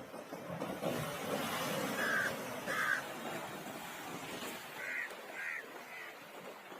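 Short harsh bird calls, two about two seconds in and three more about five seconds in, over a steady rushing noise.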